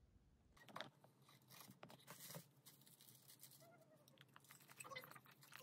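Faint close-up eating sounds: crunching and chewing of sauce-glazed Korean fried chicken (dakgangjeong), with light clicks of wooden chopsticks on a plastic container, starting about half a second in.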